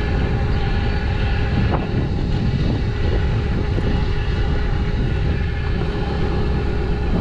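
An engine running steadily, a dense low drone with a held whine on top.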